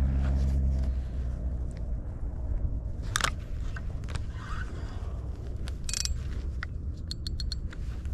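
A low motor hum cuts off about a second in. It leaves a low rumble of wind and water, broken by scattered knocks and clicks from hands working the rod, spinning reel and aluminium boat. Near the end comes a quick run of about four ticks.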